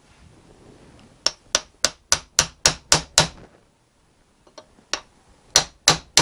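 A hammer tapping a metal bearing drift in quick runs of about four strikes a second, with a short pause between them. It is driving the metal ring of a brake seal square into the bore of a classic Mini 8.4-inch brake caliper.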